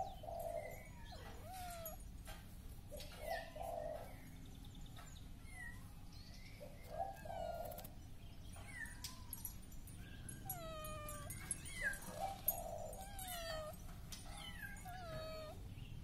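Kittens mewing over and over, a string of short high mews that each fall in pitch.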